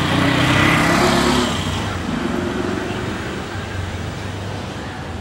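Street traffic: a motor vehicle's engine passes close by during the first second and a half, then a steady traffic hum that slowly fades.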